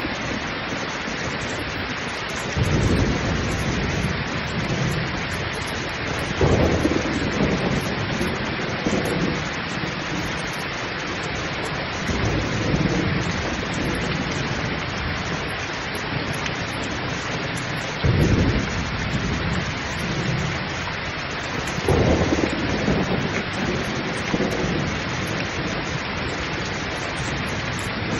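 Heavy rain pouring steadily, with several low rolls of thunder rumbling in and fading over it, loudest about a quarter of the way in and again past the halfway point.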